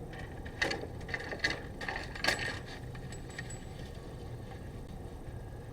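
Sewer camera push cable being fed into the line, its reel and rod clicking and rattling several times in the first two and a half seconds over a steady low hum.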